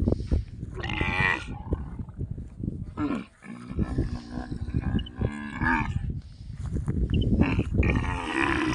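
Dromedary camels mating: a series of loud, coarse, pulsing groans and bellows, with the couched female calling open-mouthed as the male mounts her.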